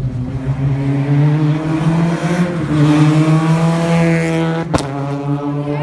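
Rally car engine held at high revs, its pitch rising a little and then easing off, with one sharp backfire bang about three-quarters of the way in.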